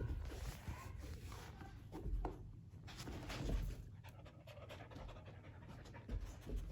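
A dog panting softly as it searches for a hidden ball.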